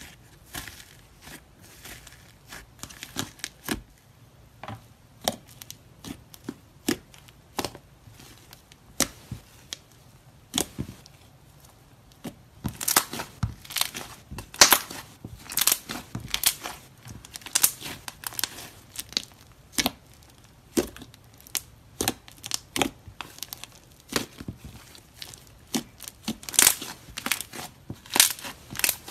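Hands kneading and squeezing a thick white slime streaked with red and orange pigment, giving sharp crackling clicks and pops. They are sparse at first and come thicker and louder from about halfway through.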